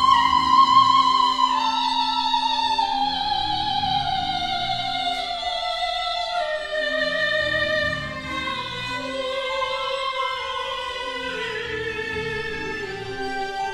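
A woman's operatic voice holds a high note and then slides slowly down in one long, wavering descending line, over soft, short instrumental notes beneath.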